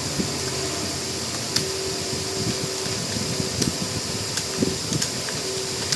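Steady whirring hum with a few sharp clicks scattered through it, about four in all.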